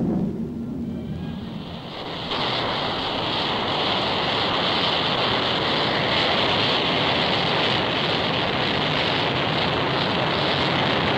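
A low rumble fades out, then about two seconds in a steady jet roar with a strong hiss sets in abruptly: an F-111's twin Pratt & Whitney TF30 turbofan engines at takeoff power on the runway.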